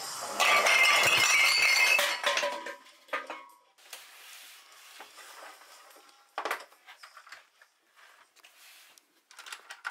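Hard objects clinking and rattling for about two seconds, then a few scattered light knocks and taps as things are handled on a table.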